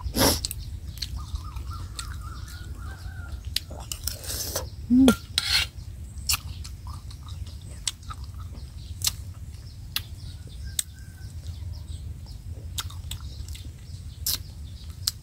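Close-up eating sounds: crunchy chewing and lip smacks on a spicy santol salad with crispy fish, with the odd clink of a spoon on a metal plate.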